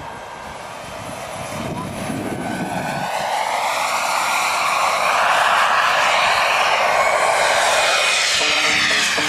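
Radio-controlled model jet flying past: a rushing whine that grows steadily louder and is loudest a little after halfway, then begins to fade as it moves away.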